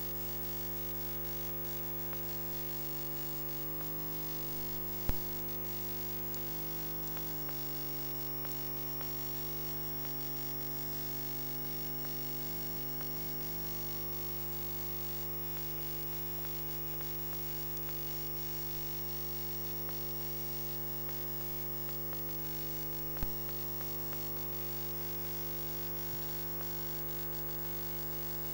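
Steady electrical mains hum with a buzzy stack of overtones and no voices. Two short sharp clicks cut through it, about five seconds in and again about twenty-three seconds in.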